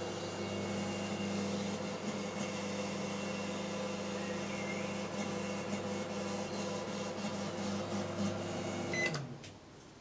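Panasonic inverter microwave oven running with a steady hum while it powers a metal halide lamp placed inside it. The hum cuts off about nine seconds in.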